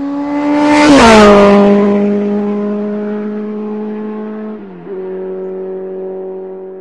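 A high-revving vehicle engine passing by: its note drops in pitch as it goes past at its loudest about a second in, then holds steady while slowly fading, with a brief dip in pitch and loudness near five seconds.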